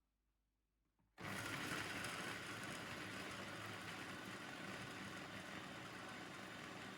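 Electric food processor switching on about a second in and running steadily, chopping onion and peppers.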